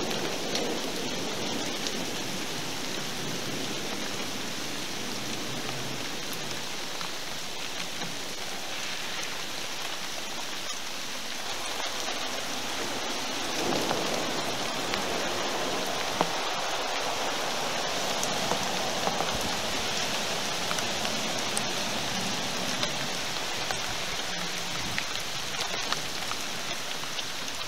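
Steady rain from a thunderstorm, falling evenly with scattered sharp drop ticks and a slight swell about halfway through.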